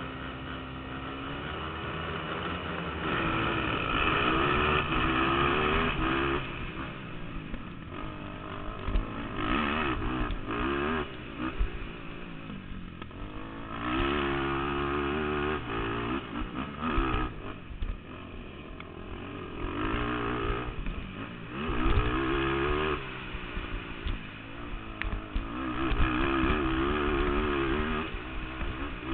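A stock 2005 Honda TRX450R quad's single-cylinder four-stroke engine under race load, heard from the rider's helmet. It revs up hard and drops off again, about six times, as the throttle is worked between jumps and corners.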